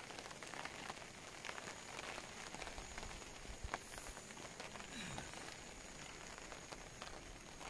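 Rain falling steadily, with scattered drops ticking.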